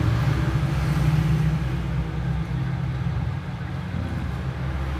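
Low, steady engine-like hum with a noisy haze, easing off about two seconds in: a motor vehicle engine running.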